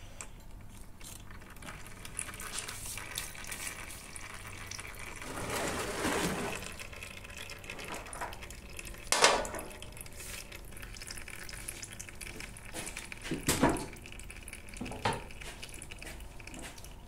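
Old engine oil trickling from a lawn mower's crankcase drain into a plastic tub, with a louder spell of flow about five to six seconds in. A few sharp knocks are heard later.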